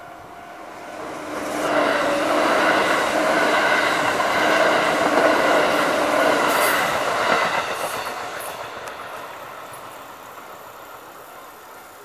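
Kintetsu electric train passing over a level crossing. It is loud from about a second and a half in until about seven and a half seconds, then fades away.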